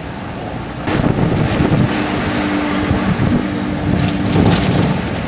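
Wind buffeting the microphone over the steady low drone of a bus engine, as heard from the open upper deck of a moving sightseeing bus. It gets louder and gustier about a second in.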